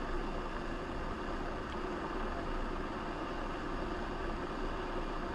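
Steady engine and road noise of a Scania S500 truck under way, heard from inside the cab: an even drone and rumble with no changes.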